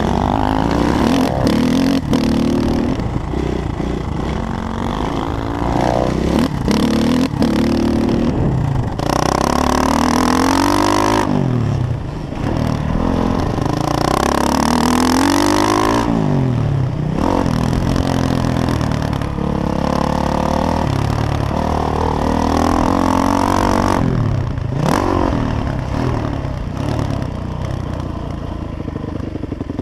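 Motocross bike engine, a 2011 Honda CRF450R's single-cylinder four-stroke, revving hard and shifting up through the gears. Its pitch climbs and then drops sharply several times. Wind rushes over the helmet camera's microphone.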